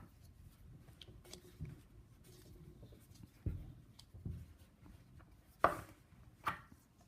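Flexible plastic overflow pipe being worked onto a rubber-sleeved barb connector: faint rubbing and soft knocks, then two sharper plastic clacks less than a second apart near the end.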